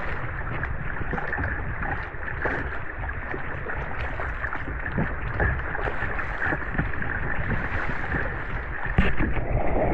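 Kayak paddling on seawater: a steady wash of water noise dotted with small splashes and drips, louder for a moment near the end.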